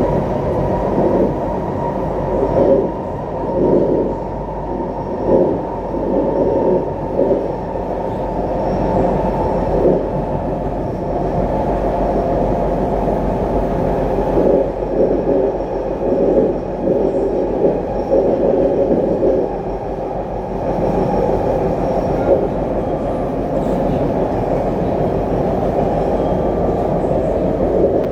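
SMRT C151B metro train running at speed, with a loud steady rumble from its bogies and wheels on the track. The rumble swells briefly again and again at uneven intervals.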